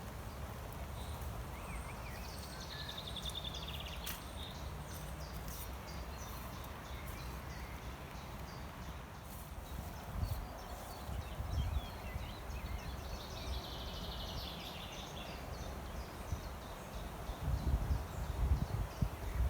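Songbirds singing outdoors, with a falling trill heard twice and scattered short chirps, over a steady low rumble. Near the end comes a run of low thumps.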